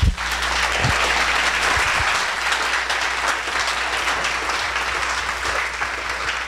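Audience applauding, a full round of clapping that starts at once and eases off a little near the end.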